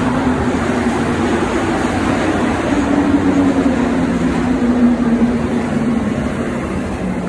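Rubber-tyred Montréal Metro train running at the platform: a steady rumble with a low hum that drops slightly in pitch around the middle.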